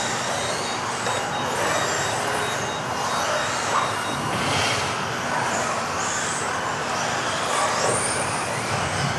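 Several modified-class electric RC off-road buggies racing at once: their motors whine up and down in pitch as they accelerate and brake, overlapping into a steady buzzing din that echoes in a large hall.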